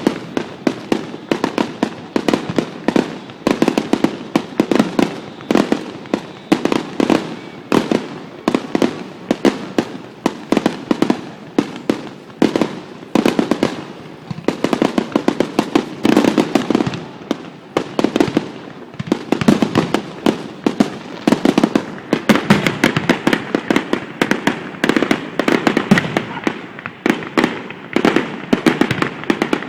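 Fireworks display going off in rapid, dense volleys: many sharp bangs and crackles a second with no break.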